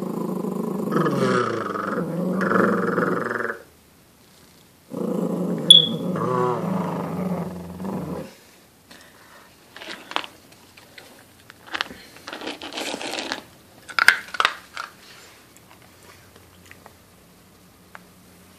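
A puppy growling with its head down in its food bowl while a hand rests on its head: two long, wavering growls, the second with a brief high squeak in it. After them come scattered small clicks and rustles.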